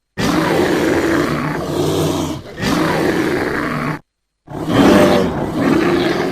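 Bear roaring in edited sound-effect clips: one long rough roar of about four seconds that dips briefly in the middle and cuts off abruptly. After a short silence a second roar starts.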